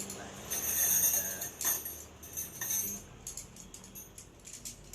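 Tent gear and packaging being handled: a dense rustle about a second in, then scattered light metallic clinks and jingles.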